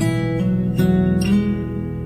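Music led by strummed acoustic guitar, with chords changing every second or so.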